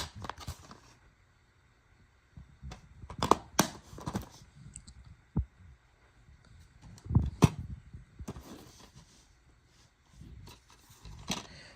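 Plastic DVD cases being handled: scattered sharp clicks and knocks a second or two apart, with a cluster around the middle.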